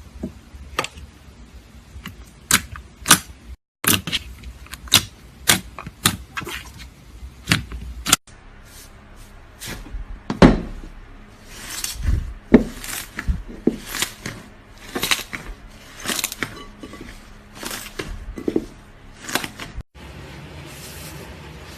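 Slime being squeezed and poked by hand, making a string of sharp pops and wet squishes.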